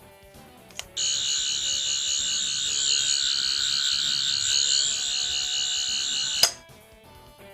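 Fourth Doctor toy sonic screwdriver (Wave 4 Heritage Line) sounding its electronic effect. A button click is followed by a loud, high-pitched warbling buzz for about five and a half seconds, which cuts off with a second click.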